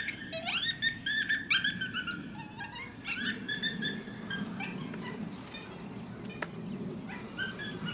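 Animal calls: runs of short, rising cries repeated in quick succession, fading out near the end.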